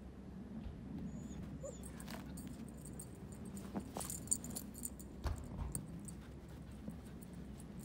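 Siberian husky puppy whining softly, with a few small sharp clicks scattered through.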